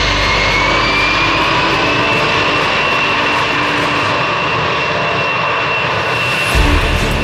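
Jet aircraft engines running, a high whine gliding upward in pitch and then holding steady over a loud, even rush of engine noise.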